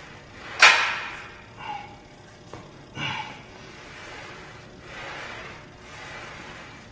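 A man breathing hard while pressing a barbell on the bench: a sharp, loud exhale about half a second in, then quieter breaths every second or two.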